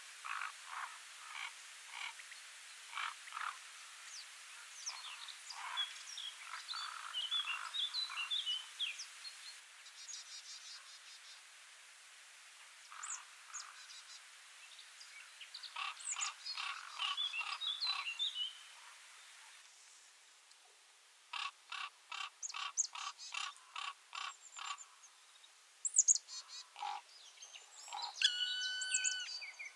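Small birds chirping and calling: scattered short chirps and whistled notes, with a run of quick, evenly repeated notes about two-thirds of the way through.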